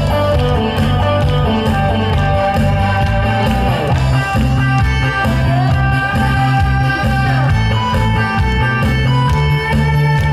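Instrumental intro of a trot song played from a backing track over the stage PA: a steady repeating bass beat under sustained melody lines.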